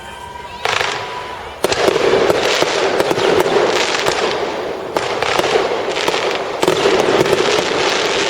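Fireworks going off: a steady high tone in the first second, then sudden bursts, each followed by dense crackling, the heaviest starting about a second and a half in and again around five and six and a half seconds in.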